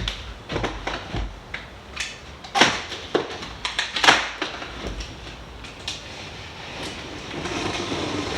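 Cardboard box being cut open with a Stanley utility knife: scratchy slicing through tape and cardboard, with scattered knocks and scrapes. The loudest knocks come about two and a half and four seconds in, and there is a steadier rustle of cardboard near the end.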